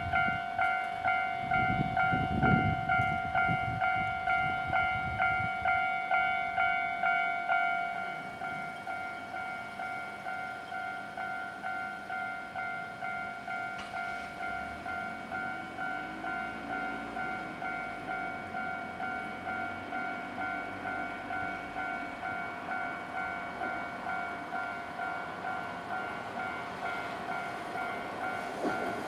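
Japanese level-crossing warning bell ringing in a quick, even rhythm of pulsing electronic tones. About 8 s in it becomes quieter as its lowest tone fades. Near the end, the rumble of an approaching tram begins to build.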